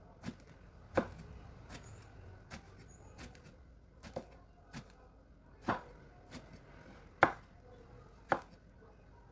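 Knife chopping on a cutting board: a dozen or so single, irregularly spaced knocks, with the sharpest about a second in and three more in the second half.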